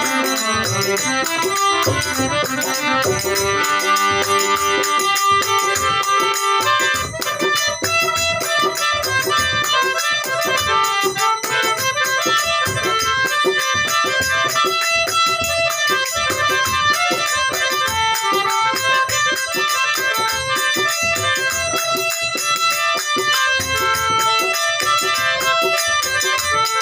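Instrumental interlude of a Rajasthani folk bhajan: a keyboard melody over steady hand-drum percussion, with no singing.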